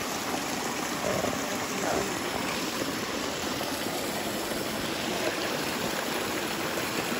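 Small rocky mountain stream running over boulders and spilling down low cascades: a steady, even rush of water.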